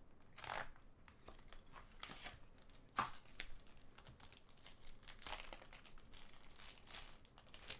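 Black plastic wrapper of a trading-card pack crinkling faintly as it is handled and pulled open, in scattered rustles with a sharp tick about three seconds in.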